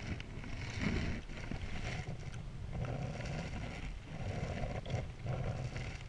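Hand handling a GoPro camera mounted on a canoe's bow, with rubbing scrapes and a few sharp clicks as it is adjusted, over a low rumble.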